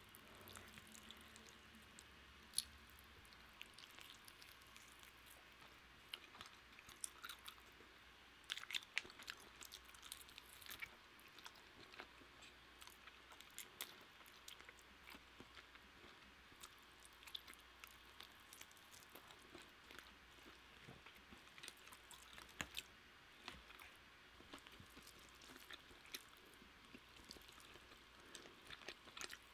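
Faint close-up chewing of roast chicken, with scattered soft wet clicks and crackles and one sharper click a few seconds in. Near the end, the chicken is torn apart by hand.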